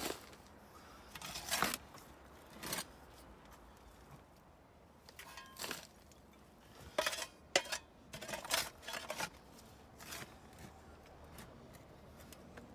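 Shovel digging into soil: a series of irregular scrapes and crunches, closer together in the second half.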